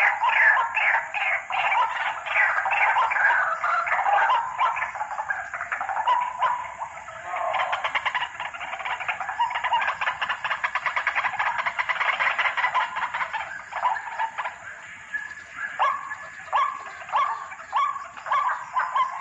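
White-breasted waterhen (ruak-ruak) calling continuously: a long series of repeated croaking notes, fast and pulsing in the middle, then separate downward-sliding notes about twice a second near the end.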